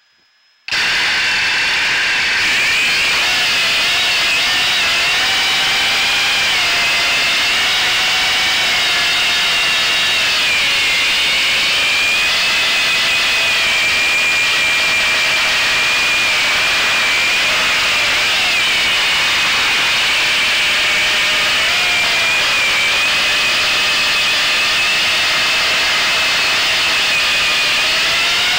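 Model airplane's motor and propeller, heard from a camera mounted on the plane, starting abruptly about a second in and then running as a steady high whine over a rushing hiss, its pitch wavering slightly as the throttle and airspeed change in flight.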